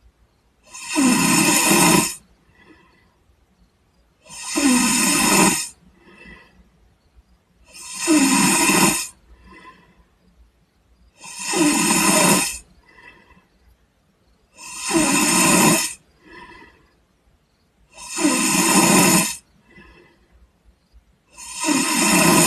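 A person snoring in sleep: seven loud snores, each about a second and a quarter long, come at an even pace about every three and a half seconds. A much fainter breath follows each one.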